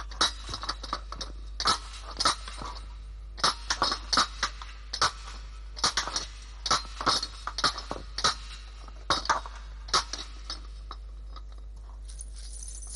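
Pickaxe and shovel blows on stony ground: a run of sharp, irregular clinking strikes, often two or three close together.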